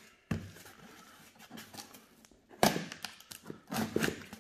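A hobby knife cutting the packing tape along a cardboard box's seam while hands shift the box. There is a knock just after the start, a louder knock and scrape at about two and a half seconds, and scratchy cutting and handling noise after it.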